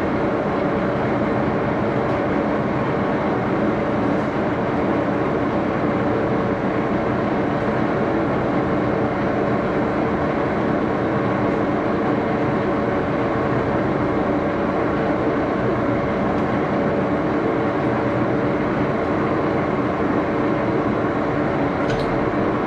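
Axelson gear-head engine lathe running steadily, with a loud even mechanical drone carrying several steady tones. There is a faint tick near the end.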